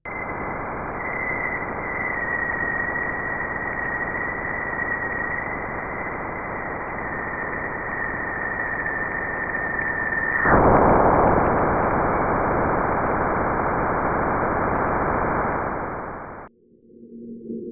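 Radio static: a steady hiss with a thin whistling tone that drifts slightly lower. Past the middle the tone stops and the hiss gets louder, then cuts off suddenly, leaving a faint low sound near the end.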